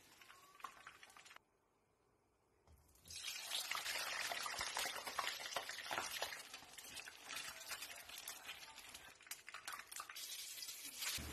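Hot cooking oil sizzling and crackling in a pan as peeled boiled eggs fry, a dense run of pops and spatters that starts about three seconds in. Before it comes a fainter sizzle from tofu frying, broken by a brief drop to near silence.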